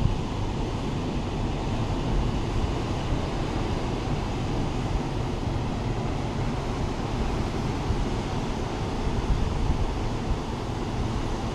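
Sea surf breaking and washing over rocks in a steady, continuous wash, with wind buffeting the microphone in a heavy low rumble.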